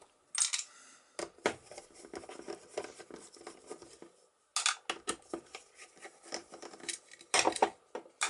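Small screws being worked with a hand screwdriver in a steel mortise lock case: irregular light metallic clicks and scraping, with a few sharper clinks of metal on metal.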